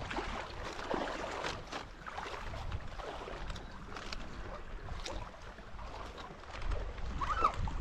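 Wind buffeting the microphone over shallow sea water lapping and splashing, with scattered small knocks.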